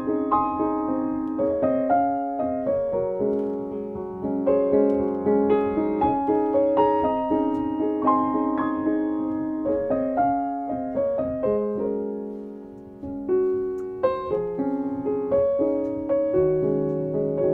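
Background piano music: a gentle melody of single notes and chords that ring and fade one after another, dipping briefly about twelve seconds in.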